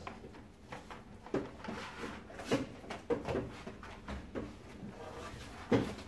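Pleated HEPA filter paper being handled: scattered rustles and light knocks as the sheet comes out of its package and is laid flat on a table, with one louder knock near the end.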